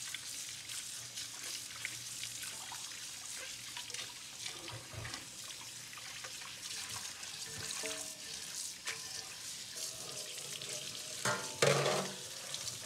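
Tap water running into a stainless steel sink while cucumbers, cilantro and green onions are rinsed by hand, with splashing and small knocks. A brief, louder burst comes near the end.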